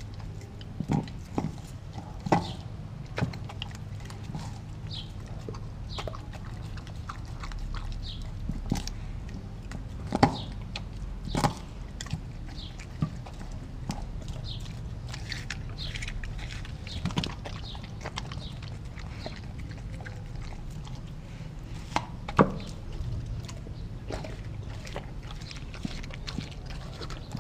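A Kelpie–German Shepherd cross chewing and gnawing raw frozen turkey steaks in a stainless steel bowl, with sharp crunches, knocks and clicks at irregular intervals; the loudest come about ten, eleven and twenty-two seconds in.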